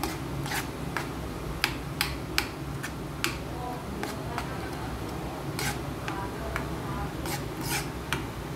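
Metal spoon stirring a thick blended chili-and-garlic paste in oil in a nonstick frying pan, scraping the pan bottom with irregular sharp clicks and scrapes against the pan.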